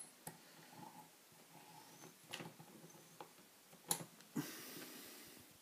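Faint handling sounds from a lock being turned over in the hands: two soft clicks, the second about four seconds in, then a brief rustle.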